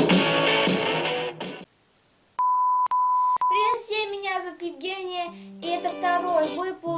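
A guitar band track, which cuts off suddenly after a second or two. A steady high beep, broken briefly twice, follows. Then a girl's voice sings over backing music.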